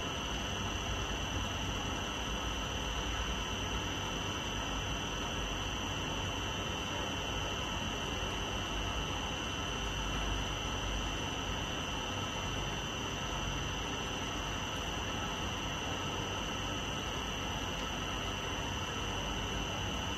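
Spring compression testing machine running as its platen slowly lifts off a released spring: a steady high-pitched electrical whine over a low hum.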